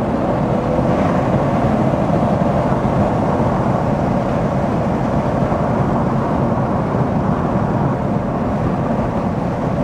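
BMW M240i's B58 3.0-litre turbocharged straight-six and Scorpion resonator- and GPF-delete exhaust under steady load while cruising, heard from inside the cabin along with road noise.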